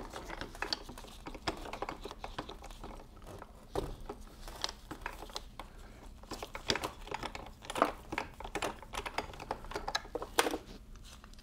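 Irregular small clicks and clinks of steel transmission parts as the fifth-speed shift fork and synchronizer assembly of a T5 five-speed gearbox are worked off the shaft by hand, with a couple of sharper clinks near the end.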